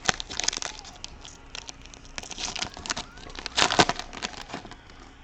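Crinkling and crackling of a foil trading-card pack wrapper being handled, in irregular bursts that are loudest a little past halfway.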